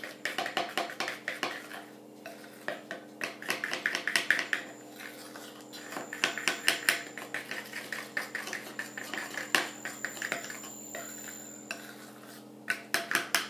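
Metal utensil clinking and scraping against a glass bowl as melted chocolate and butter are stirred together, in runs of quick strokes with short pauses between them.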